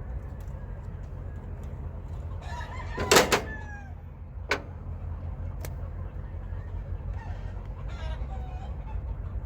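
A loud animal call lasting about a second, with falling, gliding pitches, about three seconds in, and fainter calls near the end. Two sharp clicks about a second apart follow the first call, over a steady low hum.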